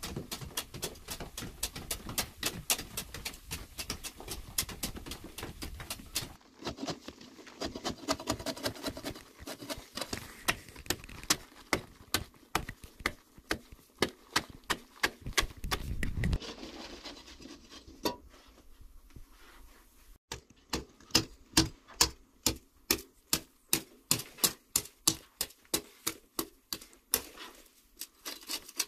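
Metal-bladed hand hoes chopping and scraping into a packed clay earth wall: a quick, uneven run of sharp strikes with soil crumbling away, settling near the end into even strokes about two a second.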